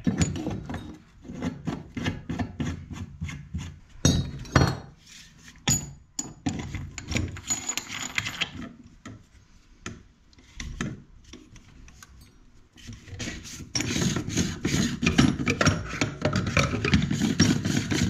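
Quick repeated rubbing and scraping strokes of hand work on copper pipework and its fittings, about three to four a second, broken by a few sharp knocks a few seconds in and a quieter spell, then a dense run of strokes near the end.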